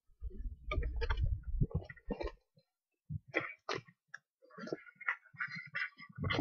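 Handling noise from rummaging for the next item: low bumps and thumps for the first couple of seconds, then scattered clicks and rustles of packaging.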